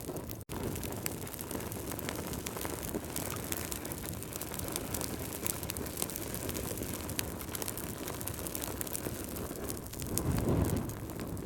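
Wood fire burning in a fireplace: a steady low rush of flame with many scattered sharp crackles and pops from the logs. The sound cuts out for an instant about half a second in, and the flame rush swells louder near the end.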